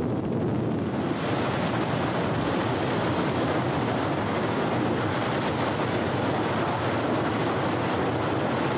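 Tornado wind rushing steadily on a video camera's microphone, a dense unbroken noise that grows brighter about a second in.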